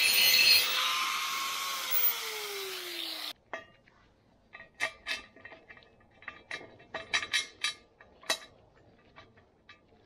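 Angle grinder grinding steel square tubing, then lifted off and winding down with a fading whine that falls in pitch, cut off suddenly a little over three seconds in. After that, a string of light metal clicks and clinks as a rounded steel piece is worked into the hole in the tube.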